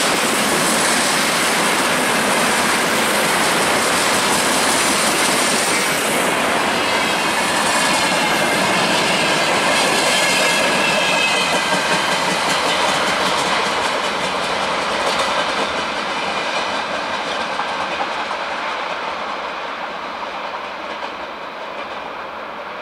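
Freight train wagons, tank cars and covered hoppers, rolling past on steel wheels that clatter over the rail joints. The noise holds steady, then fades over the last several seconds as the tail of the train pulls away.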